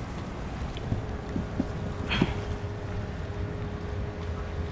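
Wind rumbling on the microphone, with a few light clicks about two seconds in. A faint steady hum comes in about two seconds in and lasts to the end.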